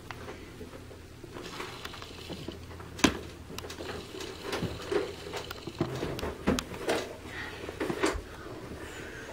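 Handling noise from a handheld camcorder as it is zoomed and refocused: scattered clicks, knocks and rubs, one sharp knock about three seconds in and a busier run of them in the second half, over a low steady hum.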